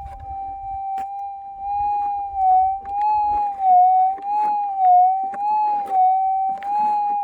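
Minelab GPZ 7000 metal detector's steady threshold tone. From about two seconds in it starts to warble up and down in pitch and grows louder as the coil is swept over the dug hole, with scraping and rustling between. The detectorist suspects the response comes from wet clay and hot rocks rather than a nugget.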